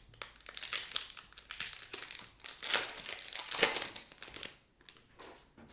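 Topps Chrome trading-card pack wrapper crinkling and crackling as it is torn open, busy for about four and a half seconds, then a few faint rustles as the cards are slid out.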